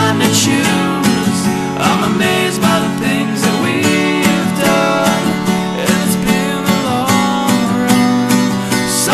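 Instrumental passage of a guitar song: strummed acoustic guitar with lead lines that bend in pitch over a steady beat.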